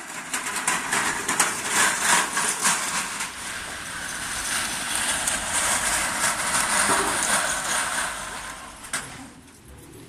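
Metal roll-cage trolleys loaded with steel beer casks and kegs rattling and clattering as they are wheeled over paving stones, dying down near the end.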